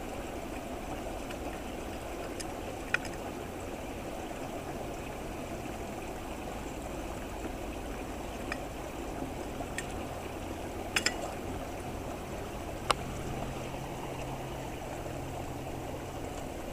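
Creek water running with a steady rushing sound, with a few sharp clicks scattered through it.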